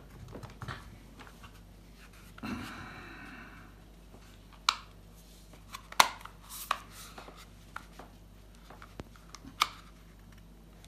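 Quiet handling noises of an electric pole saw head being assembled by hand: scattered sharp clicks and knocks of its plastic cover, bar and chain, the loudest a little before five seconds in, at about six seconds and near the end.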